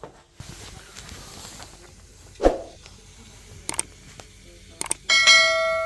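Handling noises: a sharp thump, a few quick clicks, then a single ringing ding near the end that fades out over a second or so.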